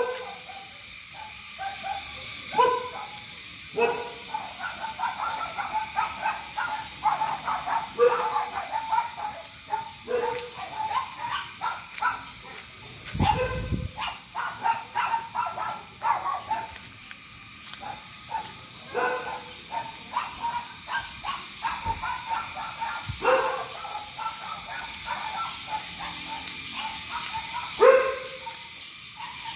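Dog barking repeatedly: single barks spaced a second or more apart at first and last, and a dense run of quick barks through the middle.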